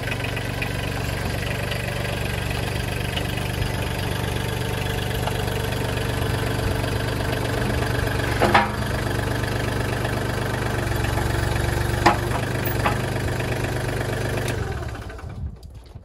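Mahindra 1626 HST compact tractor's three-cylinder diesel engine running steadily at idle, with two sharp metallic clanks about halfway through and about three-quarters of the way in. The sound drops away near the end.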